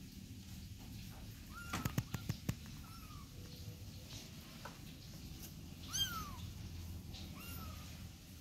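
Kittens mewing: four short, high-pitched mews, each rising then falling in pitch, the clearest about six seconds in. A quick run of sharp clicks or taps about two seconds in.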